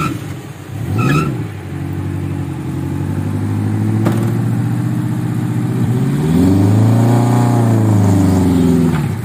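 Suzuki Katana engine running steadily, then revved up and back down over about three seconds as the jeep pulls through mud, the engine note rising and falling. The engine sound drops away near the end.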